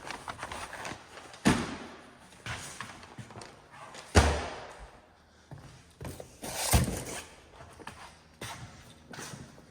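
Heavy thuds and knocks as a piece that sits on top is lifted and shifted out of the way: three solid thuds about a second and a half, four, and nearly seven seconds in, the middle one loudest, with lighter knocks between.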